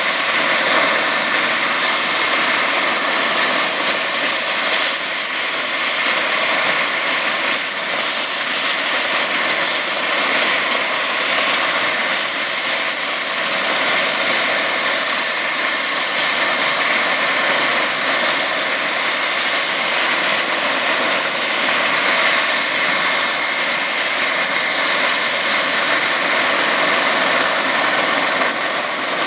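Eurocopter EC135 twin-turbine helicopter running on the ground with its main rotor turning, a steady turbine whine and rotor noise that does not change.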